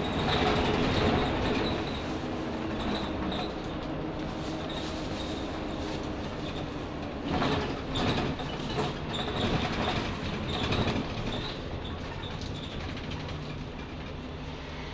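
Jelcz 120M/3 city bus under way, heard from inside near the front: its WSK Mielec 11/300/1 diesel engine running, with body and window rattles. Bouts of louder clattering knocks come around the middle.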